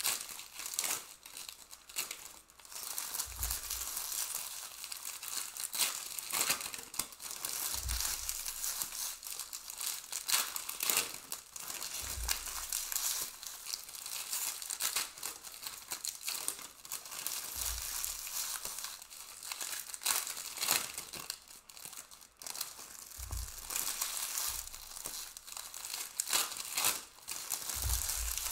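Foil trading-card packs being torn open and the cards inside handled: continuous crinkling and rustling with sharp crackles, and a low thump every four to five seconds.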